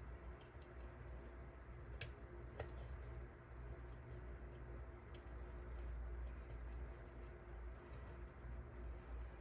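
Faint, scattered small clicks of a lock pick and tension tool working the pins of a dimple lock cylinder, with two clearer clicks about two seconds in, over a low steady hum. The lock has not yet opened.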